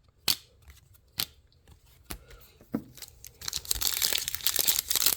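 A few light clicks and taps of trading cards being handled, then, about three and a half seconds in, the wrapper of a Topps hobby card pack being torn open and crinkled in continuous crackling.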